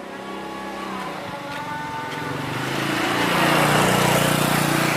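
A motor vehicle's engine passing by, growing louder to its peak about three to four seconds in, then easing off.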